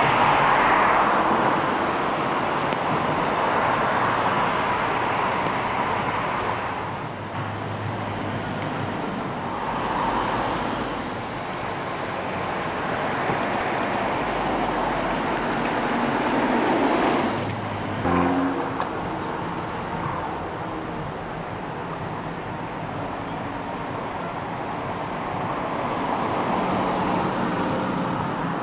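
Audi A1 Sportback driving past on a wet road: a steady mix of engine and tyre noise that swells and fades over several cut-together passes, with a brief sharper rush about seventeen seconds in.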